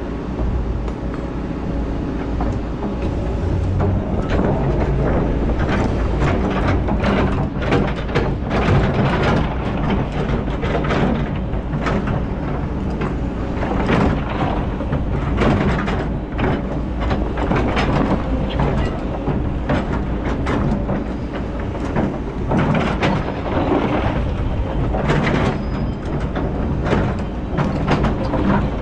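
Kobelco hydraulic excavator working: its diesel engine runs steadily under load while the bucket digs, with frequent knocks and scrapes as it hits stones and gravel.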